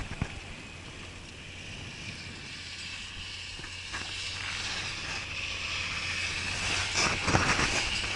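Bicycle rolling along a paved road, with tyre noise and wind on the bike-mounted camera's microphone making a steady hiss that grows louder toward the end.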